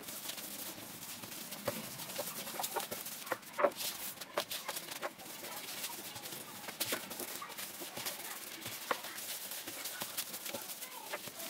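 Rolling pin rolling brioche dough flat on a wooden board, with irregular soft knocks and clicks as the pin and hands work the dough.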